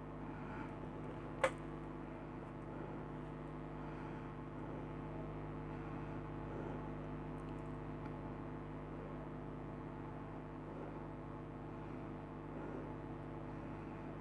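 A steady low hum made of several held tones, with a single sharp click about one and a half seconds in.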